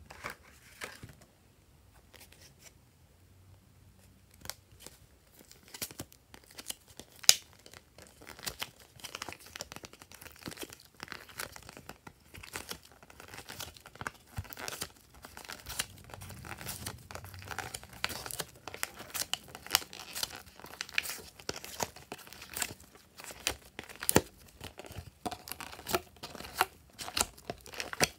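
Thin clear plastic blister tray crinkling and crackling as fingers pry and pull soft pink material out of its compartments. There are only a few clicks at first, then the crackling grows busier and louder from about six seconds in.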